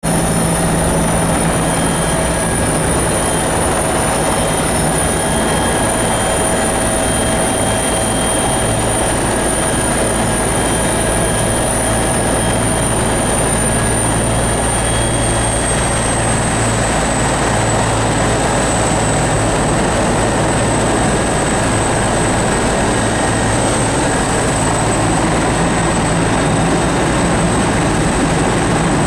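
Helicopter turbine and rotor noise heard from inside the cabin with the side door open: a loud, steady rush with a high whine that drops slightly in pitch about halfway through.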